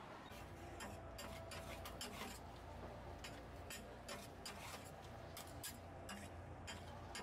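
Metal spatula scraping and clacking on a flat iron griddle while stir-frying blood sausage (sundae) and cabbage, in irregular strikes a few times a second, over a low steady hum.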